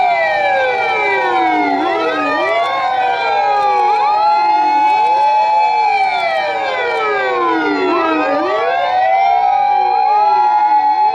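Several fire-engine sirens wailing at once, each falling and rising in slow sweeps, out of step with one another, over a steady high tone.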